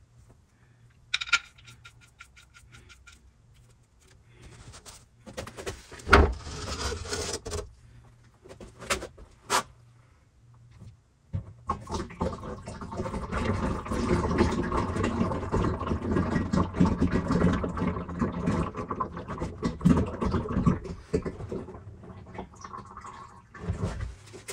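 Scattered metallic clicks and knocks, then from about halfway a steady rushing pour of engine oil running out of the oil pan's drain hole into a drain pan.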